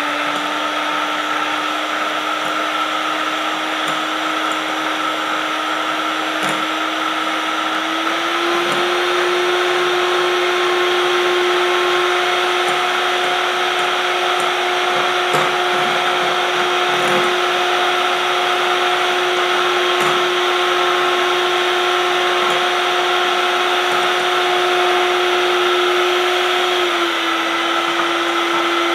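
Electric hand mixer running steadily, its twin steel beaters whisking eggs to a froth in a glass bowl. The motor's hum steps up slightly in pitch about eight seconds in and drops a little near the end.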